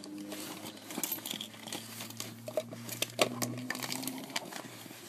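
Rustling and irregular small clicks of a hand rummaging through the contents of a large coated-canvas handbag.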